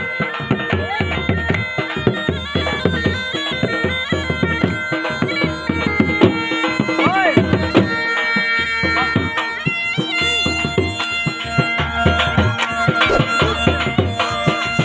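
Traditional jhumar folk dance music: a loud reed wind instrument plays a melody of held notes over a steady drone, with a drum beating underneath.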